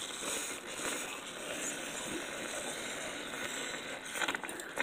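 Ground beef and chopped onion being stirred with a spoon in a stainless steel pot, a steady soft noise without distinct knocks.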